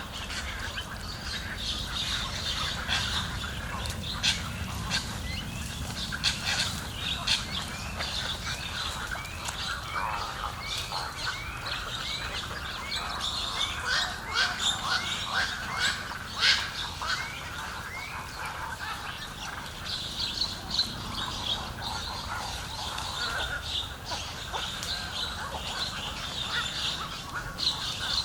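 Wild birds calling, with squawks and chirps from several birds and a long run of short rising notes repeated in quick succession through the first half.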